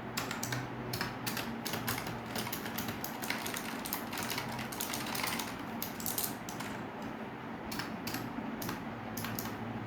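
Keys of a Razer Huntsman Mini 60% optical keyboard with clicky purple switches being pressed in quick, irregular succession: a steady patter of sharp clicks.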